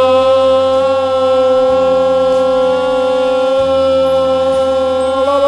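A man singing one long held note on the word 'bough', steady in pitch for about five seconds, over a low sustained backing that changes chord twice.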